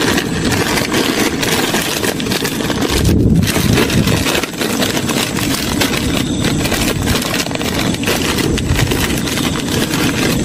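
Plastic instant-noodle packet crinkling and rustling as it is torn open and handled, in dense irregular crackles with a short pause about three seconds in. A steady low rumble runs underneath.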